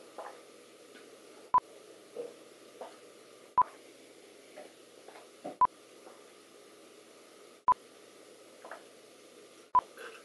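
A short, high beep repeating five times, about every two seconds, each just after a brief cut in the background. Between the beeps there is a low hiss and a few faint soft sounds.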